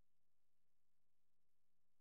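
Near silence: an empty audio track with only a faint steady low hum and hiss.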